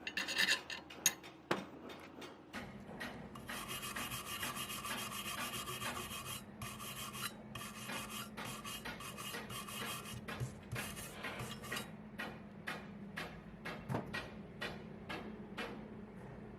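Repeated rasping, rubbing strokes: a steadier stretch of scraping a few seconds in, then separate short strokes about two a second.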